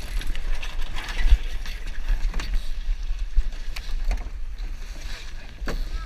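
Sailing dinghy under way: a steady rumble of wind on the microphone, with scattered clicks, knocks and short squeaks from the rigging and blocks.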